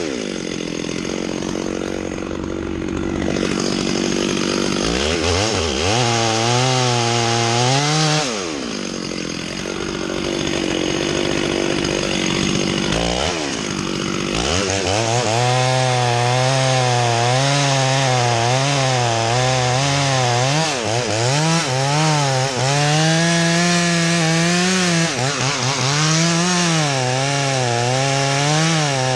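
Two-stroke gas chainsaw cutting into the trunk of a red oak. The engine is held on high throttle, its pitch wavering as the chain bogs and frees in the wood. The revs drop and pick up again a few times in the first half, then the saw runs on steadily in the cut.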